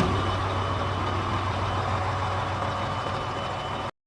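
Sinotruk Howo tractor truck's diesel engine running steadily, then cutting off suddenly near the end.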